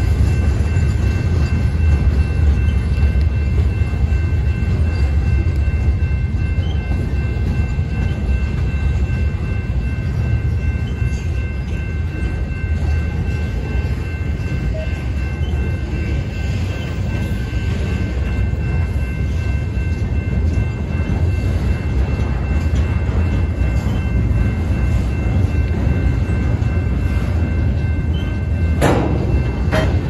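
Freight train's loaded gondolas and flatcars rolling steadily past, their wheels rumbling over the rails, with a constant high-pitched ringing held above the rumble. A single sharp clank about a second before the end.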